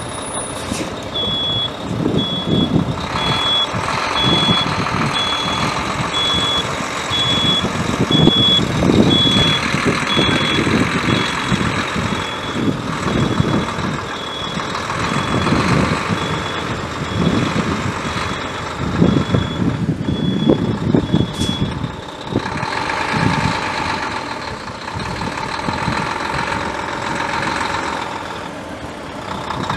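Backup alarm on a 2008 Mack CHU613 semi truck beeping at a regular pace, the sign that the truck is in reverse; it stops about two-thirds of the way through. Under it the truck's Mack MP8 12.8-litre inline-six turbo diesel runs throughout, rising and falling.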